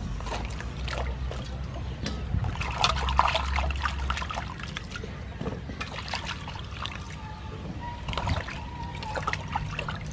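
Hands swishing slices of green papaya around in a steel bowl of water, with irregular splashing and trickling.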